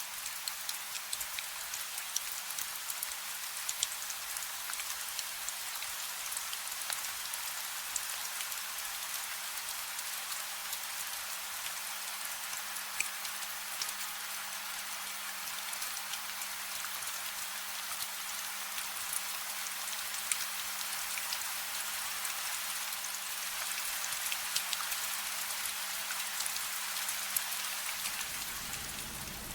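Rain falling on hard surfaces: a steady hiss with a dense patter of fine drop ticks over a faint low hum. Near the end it gives way to a low rumble.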